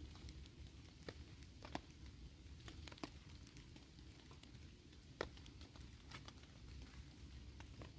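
Faint raindrops pattering on a tarp shelter: scattered, irregular drips and ticks over a low steady rumble, with three louder drops about two, three and five seconds in.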